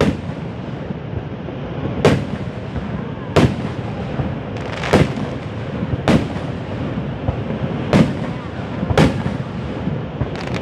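Fireworks shells bursting: about eight sharp booms, unevenly spaced one to two seconds apart, over a steady background noise.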